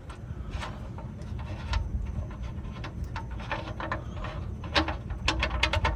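Irregular small metallic clicks and knocks of a wrench being worked on the oil drain plug under the truck, coming quicker in the second half, over a low steady rumble.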